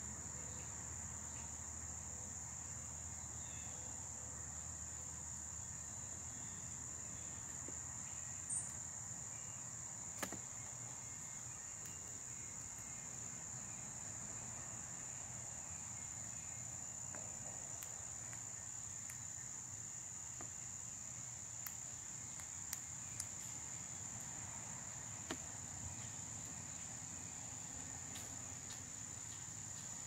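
Steady high-pitched trill of insects, typical of crickets, running without a break. A few short sharp clicks stand out, around 8 and 10 seconds in and several more in the second half.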